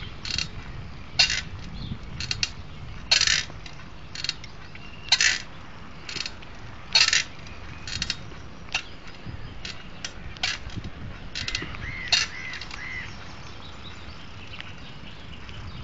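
Footsteps on a paved path at a slow walk, a sharp scuffing click about once a second. A few short bird chirps come in about three quarters of the way through.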